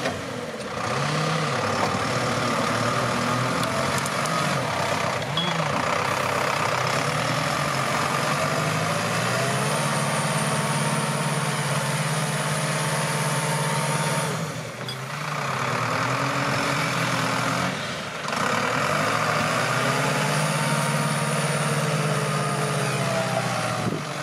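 Zetor tractor's diesel engine running hard under load, its pitch rising and falling as it strains to pull a log-laden trailer through mud and snow, easing off briefly twice.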